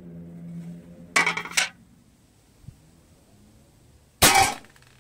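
Snow Wolf M24 spring airsoft sniper rifle firing a 0.90 g steel BB into an aluminium licence plate at close range: a sharp crack with a short metallic ring about four seconds in. About a second in come two quick, loud metallic clatters.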